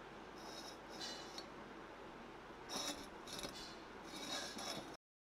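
Faint, light clinks and scrapes of steel pieces being shifted and set against a steel table, in several short bursts. The sound cuts off to silence just before the end.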